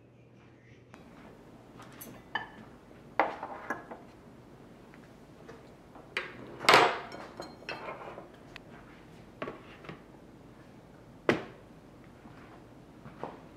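Scattered knocks and clinks of household items being handled, one every second or two, the loudest about seven seconds in.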